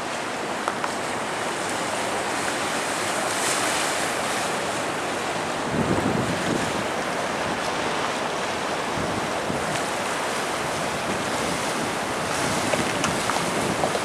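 Choppy high-tide sea water splashing and washing against a stone slipway, with steady wind blowing on the microphone. A heavier low rumble comes about six seconds in.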